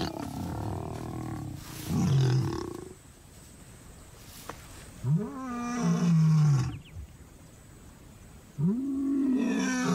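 Male lion roaring: three long roars a few seconds apart, each rising and then falling in pitch. This is a territorial roar, proclaiming the pride to the neighbourhood.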